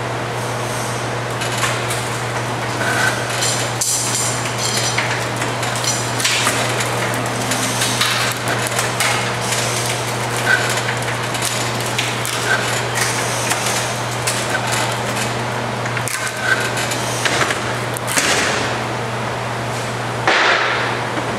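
Pallet Chief nail clincher running: a steady low machine hum with irregular metallic clanks and knocks as a wooden pallet feeds between its heavy rollers, which clinch the protruding nail points.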